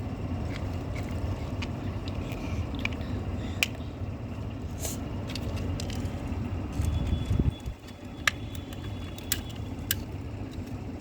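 Scattered sharp clicks and knocks of plastic toy car wheels being pushed onto their axles, over a steady low rumble.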